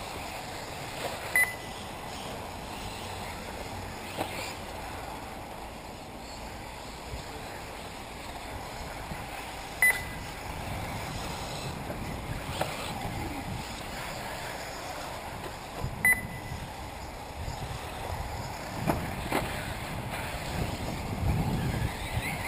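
Ambience of 1/8-scale electric RC buggies racing on an off-road track, with a short high beep from the race lap-timing system three times, several seconds apart, as cars cross the timing line.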